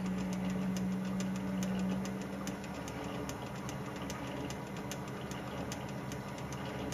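Metal lathe running with a brass bearing blank turning in the chuck as a 5/16-inch reamer is fed into its bore: a steady motor hum with a regular light ticking. The strongest tone of the hum fades about two and a half seconds in.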